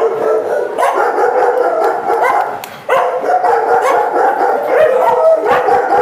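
Many dogs in boarding kennels barking and yipping at once in a continuous, overlapping din. It dips briefly a little before halfway and then comes back at full strength.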